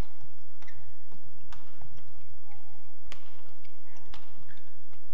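Badminton rally: rackets striking the shuttlecock with sharp cracks about once a second, with short squeaks of court shoes between the shots.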